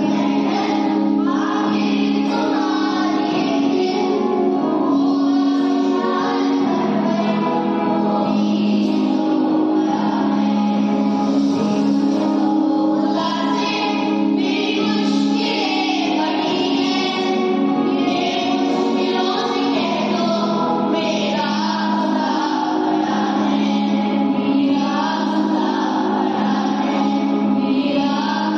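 A group of children singing a song together in unison, the melody moving over steady held low notes.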